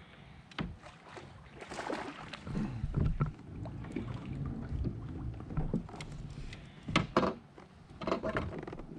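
Irregular knocks and handling noises in a plastic fishing kayak, with several sharp knocks, two of them close together near the end, as an angler works a rod and line from the seat.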